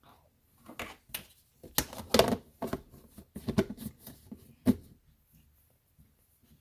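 A peanut butter cookie being bitten and chewed close by: a run of irregular crunches and small knocks between about one and five seconds in.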